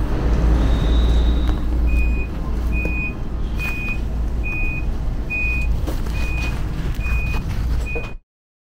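Train door-closing warning: eight short high beeps, a little more than one a second, over the steady low rumble of the train standing at the platform. The sound cuts off suddenly near the end.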